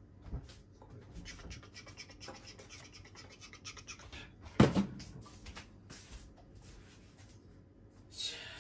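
Cling wrap being picked and scratched at on a bowl of frozen rice it is frozen onto: a run of faint scratchy crinkling clicks, with one sharp knock about halfway through.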